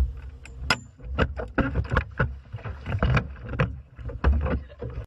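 A rapid, irregular run of knocks and thumps on a small fishing boat, loudest in the low end, in a scramble of movement aboard.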